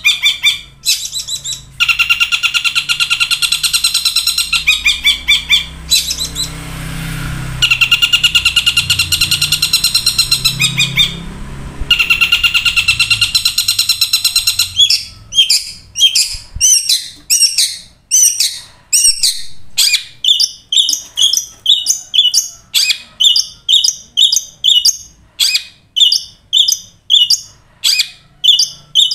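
Long-tailed shrike singing in a song style that Indonesian keepers call 'kuntilanak': long runs of fast, harsh chattering notes, changing about fifteen seconds in to a string of short, sharp repeated notes.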